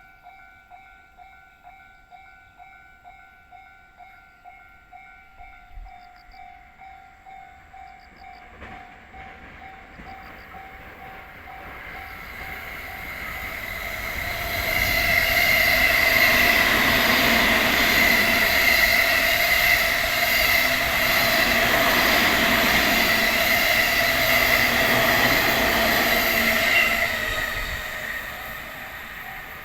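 A level-crossing warning bell rings in a steady electronic pulse, about two strikes a second. A Sobu Rapid Line electric train then passes, building from about ten seconds in, running loud for about twelve seconds, then fading near the end.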